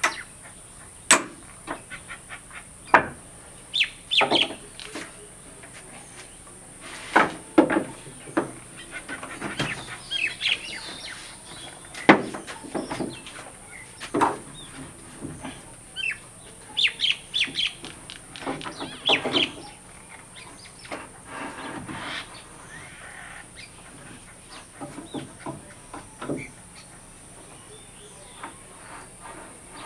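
Hammer knocking on a wooden door as it is fitted: sharp, irregular strikes spaced a second or more apart, some in quick pairs. Birds calling in between.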